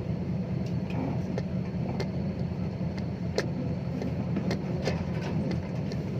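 Six-wheel dump truck's diesel engine running steadily as it drives, with scattered sharp clicks and knocks over the drone.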